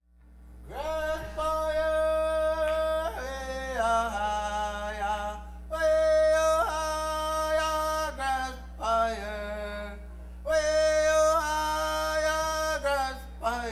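A man's solo voice singing unaccompanied in a chant-like style, with no recognisable words: several long held phrases, each ending in a falling slide. A steady low hum runs underneath.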